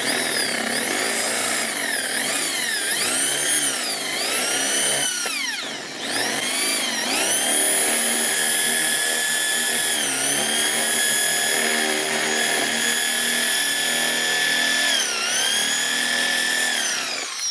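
Bosch GSB 550 impact drill running in plain rotary (non-hammer) mode with a concrete bit, drilling into masonry. The motor's high whine sags in pitch each time the bit bites under load, eases off briefly about five seconds in, then starts again and runs fairly steady with small dips.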